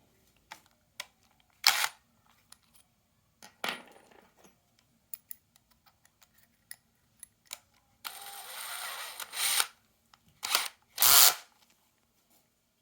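Handling clatter of metal tool parts: light metallic clicks and clinks, several louder knocks, and a brief scraping rush just past the middle. The drill motor is not running.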